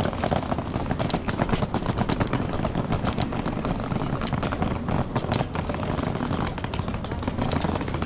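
Wheels of a hard-shell suitcase rolling over block paving: a continuous rattling rumble with rapid clicks as the wheels cross the joints between the pavers.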